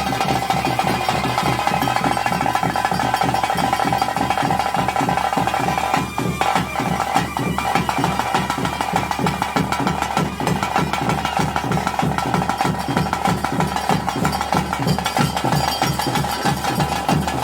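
Bhoota kola ritual music: fast, dense drumming under a steady high held note, with a brief drop in the sound about six seconds in.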